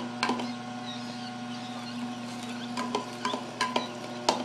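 Masticating juicer running with a steady low motor hum while fruit is pushed into its auger with a plastic plunger. Scattered clicks and knocks come from the feed chute and auger, several close together near the end, the loudest just before it ends.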